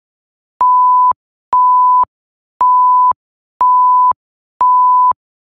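Countdown timer warning beeps marking the last five seconds: a steady mid-pitched electronic tone about half a second long, sounding five times about once a second, with a slight click as each beep starts and stops.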